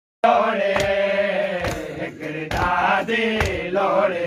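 Chanted noha (Shia lament) with sharp, even chest-beating (matam) strikes just under once a second. It cuts in abruptly just after the start.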